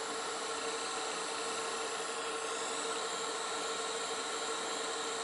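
Butane cordless soldering iron (Bernzomatic ST500) running with a steady hiss of burning gas while it heats a wire for tinning.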